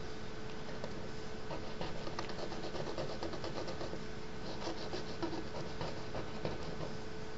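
A thin ink-dipped stick scratching across paper in quick scribbling strokes. It makes runs of rapid small scratches, densest about two seconds in and again around five seconds.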